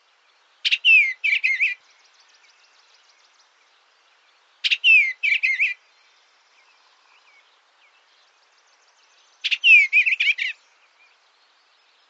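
A songbird singing three short phrases, each about a second long and about four and a half seconds apart. Each phrase opens with a sharp note and runs into quick warbling, sliding notes.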